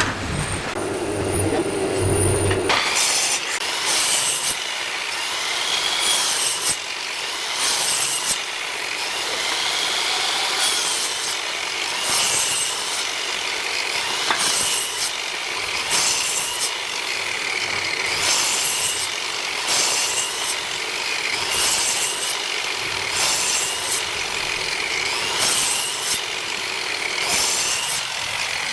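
Wood being worked with a tool in repeated scraping strokes, roughly one every second or two, over a steady higher-pitched whine. A lower hum in the first couple of seconds gives way to the strokes.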